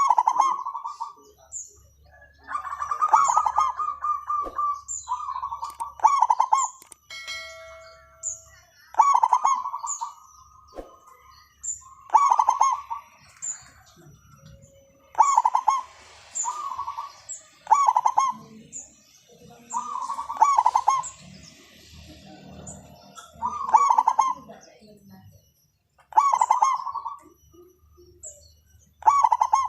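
Zebra dove (perkutut) cooing in rapid, staccato phrases that repeat every two to three seconds, the kind of call played to lure caged doves into singing. Thin, high chirps repeat between the phrases throughout.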